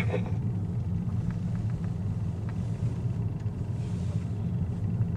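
Steady low rumble of a Mazda 3 Skyactiv X rolling slowly over airfield concrete, heard from inside the cabin: engine and tyre noise at low speed.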